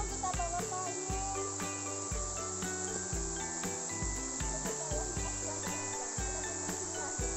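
Steady, dense insect chorus with a high, even shrill. Under it runs a music track with a regular beat.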